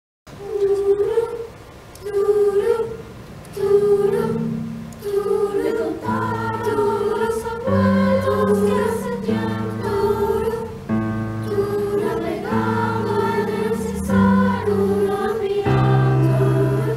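A choir singing: short repeated phrases at first, then fuller from about six seconds in, with lower parts holding long notes beneath.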